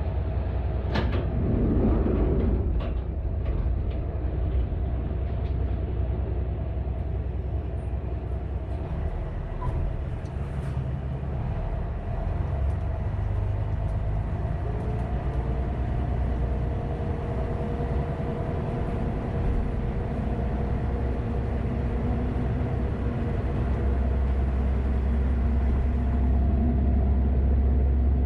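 Kanto Railway KiHa 532 diesel railcar running, heard from the cab: a steady engine drone with a few held tones. The low drone grows louder about 24 seconds in.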